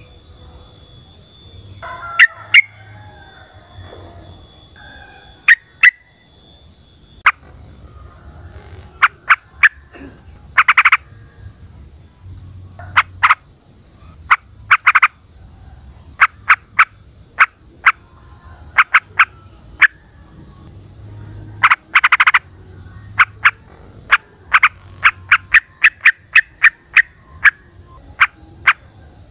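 Yellow-vented bulbul (trucukan) giving loud, sharp, short calls, sometimes singly and sometimes in quick chattering runs, packed densest near the end. Steady insect trilling runs behind them.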